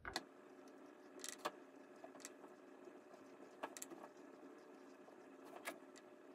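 Faint paintbrush strokes on canvas: a handful of brief, spaced-out strokes as short lines of acrylic paint are laid down, over a low steady hum.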